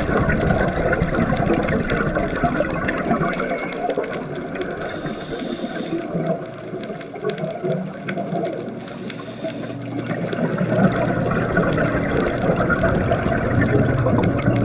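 Steady wash of moving water. Low sustained tones swell in from about ten seconds in.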